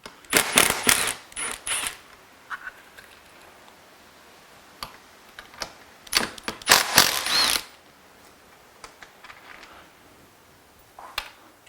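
Two bursts of rattling, clicking mechanical handling noise, one near the start and one about six seconds in, as parts on a car seat are worked by hand, with scattered light ticks in between.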